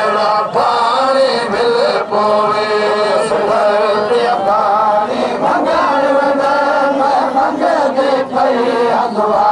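A crowd of male mourners chanting a noha together, a rhythmic Shia lament in a Muharram mourning procession.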